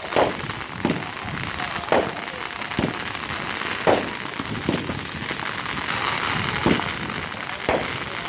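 Consumer firework cakes firing shot after shot: a sharp bang about once a second over continuous crackling.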